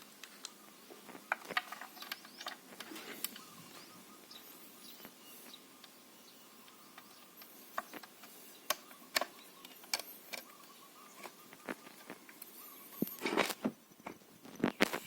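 Scattered sharp clicks and light knocks of small metal parts and a tool being handled while a bolt is fitted on a homemade air rifle, with a busier run of knocks near the end.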